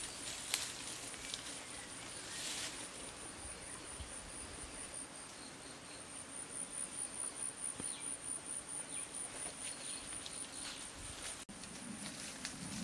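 A steady high-pitched insect trill that pulses for a few seconds in the middle, with a few faint rustles.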